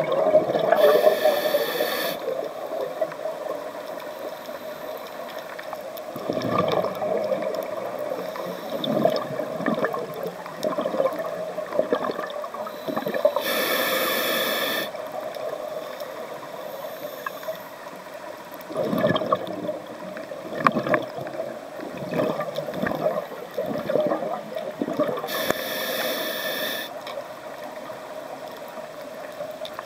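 Scuba diver breathing through a regulator underwater: a hissing inhale about every twelve seconds, each followed a few seconds later by a gurgling burst of exhaled bubbles, over a steady underwater rush.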